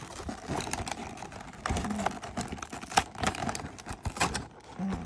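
Plastic packaging of a blind pack being handled and picked at by hand: a quick run of small clicks and crinkles as someone tries to get it open.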